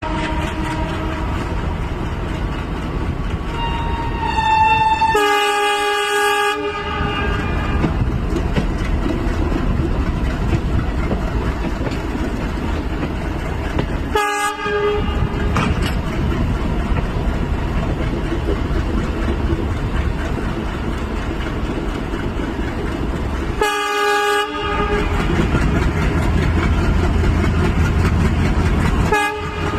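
Indian Railways WDP4D diesel locomotive running, with a steady rumble and wheels clicking on the rails. It sounds its horn four times: a long blast about five seconds in, shorter blasts about halfway and at about three quarters, and a brief toot just before the end.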